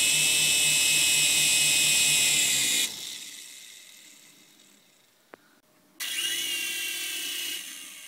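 Toy remote-control helicopter's small electric motors spinning the rotor blades with a high whine. The motor cuts out about three seconds in and the sound winds down, then it runs again briefly about six seconds in.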